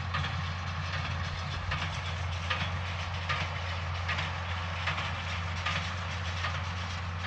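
Tractor engine running steadily while a hay baler works, its plunger giving a regular clack roughly every 0.8 seconds. The baler is running with one of its two plunger guards broken off but is still making bales.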